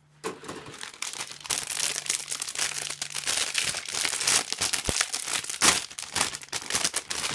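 Clear plastic bags of model-kit runners crinkling as they are handled and lifted out of the box, with many sharp clicks.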